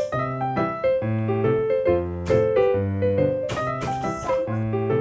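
Background piano music: a repeating pattern of struck notes with a steady pulse, and a few short crackles over it.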